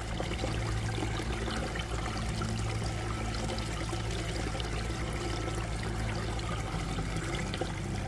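Water trickling and splashing down a small, partly frozen stream: a steady rush with many small, quick splashes and drips.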